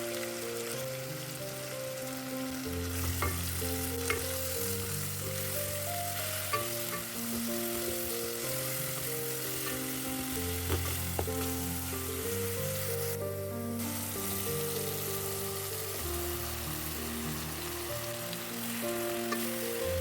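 Vegetables sizzling as they fry in a pan, with a few sharp clicks from a stirring utensil against the pan; background music with slow held notes plays over it.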